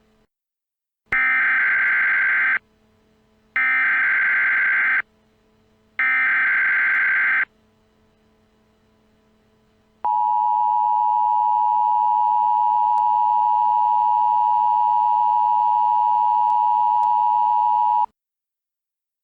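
Emergency Alert System tones opening a new alert. First come three identical bursts of buzzy digital data noise, each about a second and a half long with about a second between them: the SAME header. Then, after a short pause, the steady two-tone attention signal sounds for about eight seconds and cuts off abruptly.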